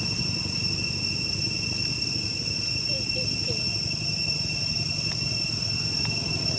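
Insects droning with a continuous, even, high-pitched tone, over a steady low rumble.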